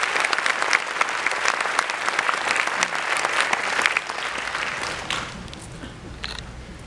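Audience applauding, many hands clapping at once, dying down about four to five seconds in.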